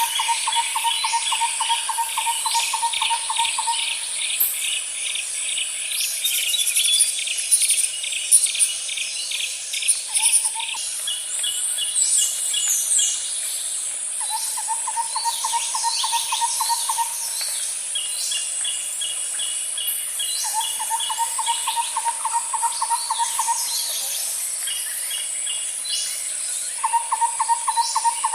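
Insects and birds calling together: a steady, high-pitched insect drone underneath, a lower, fast-pulsed trill that comes and goes in bouts of a few seconds, runs of rapid chirps, and many short bird calls scattered throughout.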